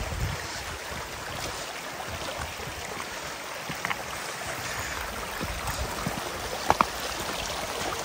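Stream of water running down from a frozen waterfall, a steady rushing, with two sharp clicks close together near the end.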